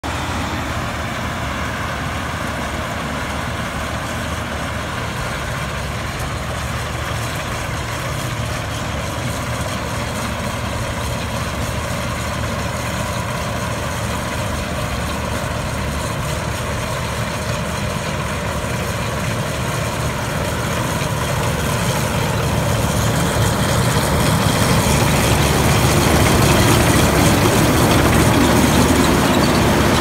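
Rice combine harvester, a crawler-tracked 4LZ-4.0ZD, with its engine and cutting and threshing machinery running steadily as it harvests paddy. It grows louder over the last ten seconds or so as it comes close.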